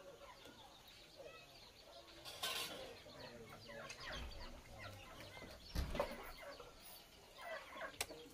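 Chickens clucking quietly, in short scattered calls. A brief rustle comes about two and a half seconds in and a low thump, the loudest sound, about six seconds in.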